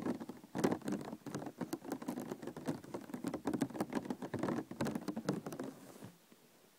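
Plastic container being handled: a dense run of small clicks and crackles that stops about six seconds in.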